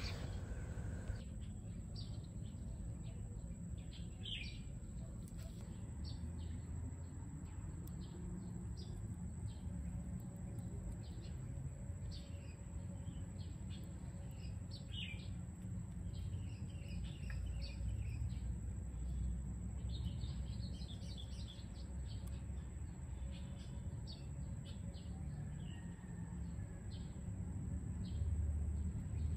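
Lesser banded hornet's (Vespa affinis) mandibles clicking and scraping against a clear plastic queen cage as it chews honey bee larvae: many short, faint clicks scattered irregularly over a low rumble.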